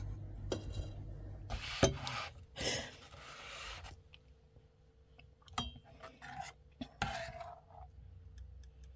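A kitchen utensil scraping and knocking against a pan of freshly made béchamel sauce. There is a sharp knock just before two seconds in, scraping up to about four seconds, then scattered light clicks.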